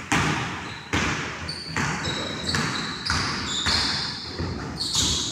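A basketball dribbled on a hardwood court, about eight bounces each ringing out in the large gym's echo. Sneakers squeak in short, high chirps, more of them near the end.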